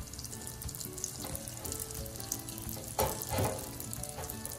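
Small cheese spring rolls frying in 180 °C oil in an electric deep fryer: a steady bubbling sizzle with fine crackle and a louder burst about three seconds in.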